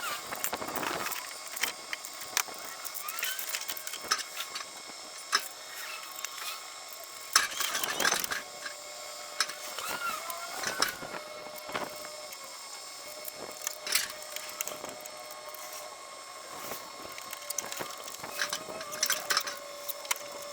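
Scattered knocks and clunks with a few short squeaks as a heavy cabinet is shifted and lifted, with irregular impacts throughout.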